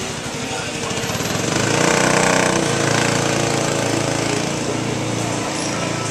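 A machine or engine running with a rapid rattle, growing louder about a second and a half in and easing off slightly toward the end.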